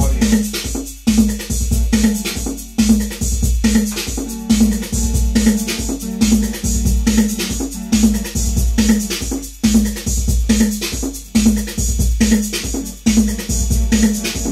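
Detroit techno played on a Roland TR-808 drum machine and a Roland Jupiter-6 synthesizer: a steady drum-machine beat with a short synth note repeating about twice a second.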